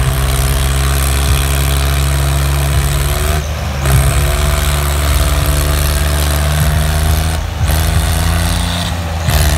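Tractor's diesel engine running hard while the tractor spins in a wheelie on its rear wheels. The engine note drops briefly three times and climbs back up in pitch after each drop.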